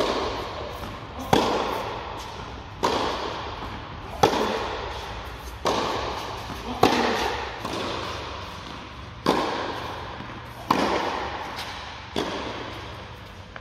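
Tennis rally: rackets hitting the ball about every one and a half seconds, each sharp pop trailing off in a long echo around the indoor court hall.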